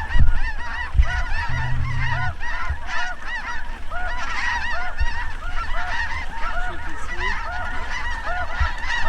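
A flock of geese calling, many short honks and yelps overlapping without a break. There are a few dull low thumps.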